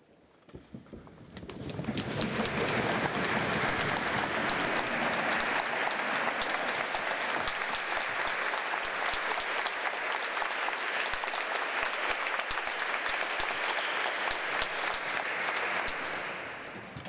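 Concert audience applauding: a few scattered claps swell into full, steady applause about two seconds in, then die away near the end.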